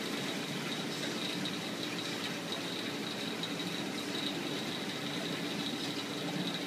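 Steady mechanical hum of running aquarium equipment, a constant low drone and a thin high tone over a hiss.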